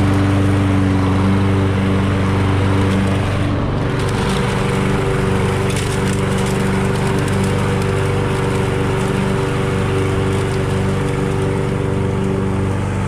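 Toro 22-inch Recycler walk-behind lawn mower running steadily at constant speed, with a scattered crackle of debris through the deck.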